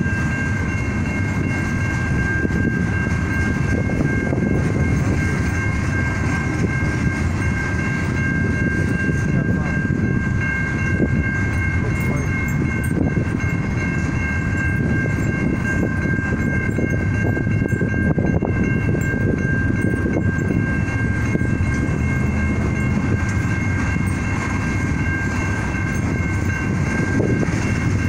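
Freight train of tank cars and boxcars rolling past through a grade crossing: a steady low rumble of wheels on rails, with steady high ringing tones held over it.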